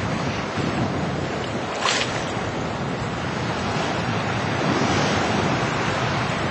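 Sea surf breaking and washing up the beach, with some wind on the microphone; a brief sharper hiss about two seconds in.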